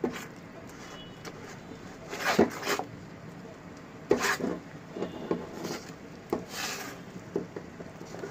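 Silicone spatula stirring and scraping around a metal pot of thick, bubbling caramel sauce, in irregular strokes a second or two apart, while the caramel is cooked down to thicken.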